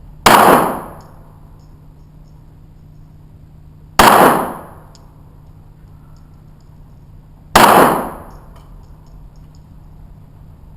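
Smith & Wesson .22 pistol firing three single shots, spaced about three and a half seconds apart. Each crack rings out and fades within about a second.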